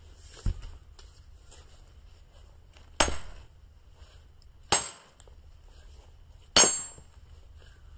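A hammer striking a Wetterlings steel splitting wedge set in a log round: three ringing metal-on-metal blows a little under two seconds apart, driving the wedge in to split the wood. A smaller dull knock comes about half a second in.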